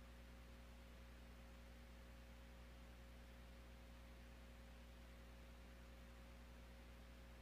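Near silence: room tone with a steady low electrical hum and a faint constant higher tone.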